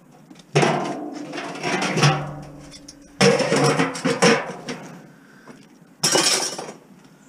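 Pieces of stainless steel scrap being thrown onto a metal pile, with several loud metallic clangs that each ring for about a second.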